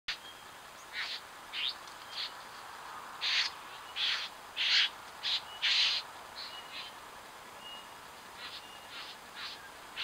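Bowerbirds calling: a run of short, scratchy calls, loudest and closest together from about three to six seconds in, with a few faint thin whistles between them, over the steady hiss of a trail camera's microphone.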